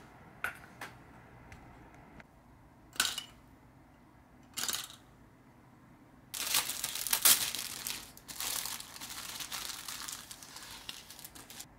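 A few light clicks as small plastic kit parts go into a paper cup, then several seconds of crinkling from a clear plastic bag of chrome-plated model-kit parts being handled.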